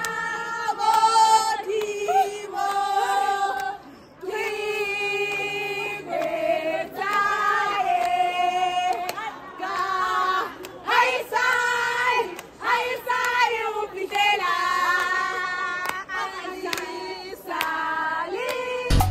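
A group of women singing together in celebration, in short phrases of held notes.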